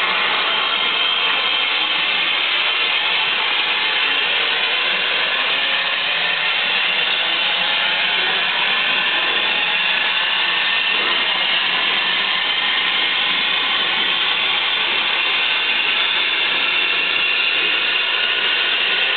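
Steady loud hiss of steam escaping from a steam locomotive, with faint wavering high tones in it and no change in level.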